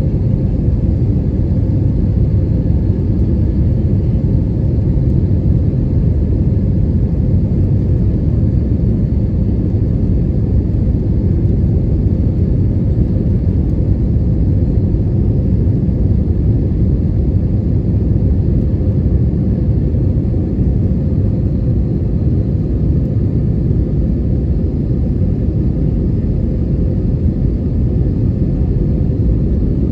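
Steady cabin rumble inside an Airbus A320neo (A320-271N) airliner, from its Pratt & Whitney geared turbofan engines and the airflow, with a faint steady hum above the rumble and no change in level.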